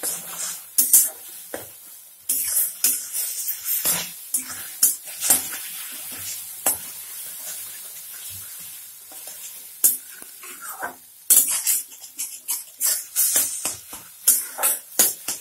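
Beaten eggs sizzling as they fry in a little oil in a kadai, stirred and scraped into shreds, with frequent sharp clicks of the spatula against the pan.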